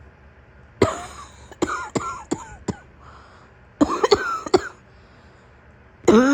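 A sick woman's harsh, wet-sounding morning cough: a fit of short coughs in two bursts, about a second in and again near the middle, then a louder, longer sound with her voice in it near the end.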